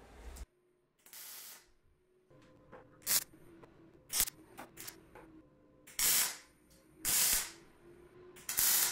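MIG welder laying a series of short tack welds on steel square tubing: six brief crackling bursts of arc, each under a second, about a second or so apart. A faint steady hum runs underneath between tacks.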